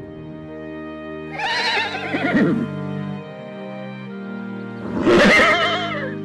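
Zebra calling twice, each call a wavering, whinny-like cry that falls in pitch, over soft piano music.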